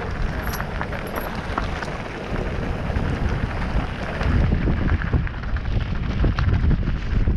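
Mountain bike riding over a rough, rocky trail: a heavy rumble of wind buffeting the microphone and tyres on rock, with frequent sharp clicks and rattles from the bike.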